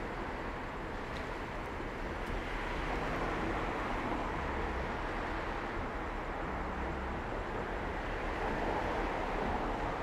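City street traffic at an intersection: cars driving through and idling at the lights make a continuous hum of engines and tyre noise, swelling slightly as vehicles pass.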